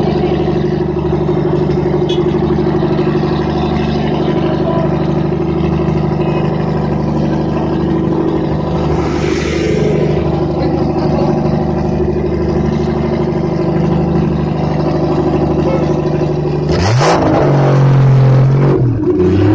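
Nissan Skyline R32's engine idling steadily through its exhaust, then revved up sharply near the end, falling back and rising again.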